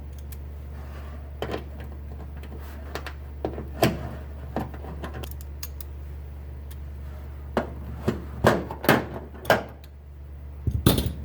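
Irregular clicks and knocks of small parts and hand tools being handled while a hinged lid and its rivets are fitted, busiest in the last few seconds, over a steady low hum.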